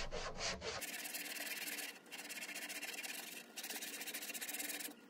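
Sandpaper being rubbed by hand back and forth over a turned wooden spindle in quick, even strokes, starting just under a second in, with brief pauses about two and three and a half seconds in.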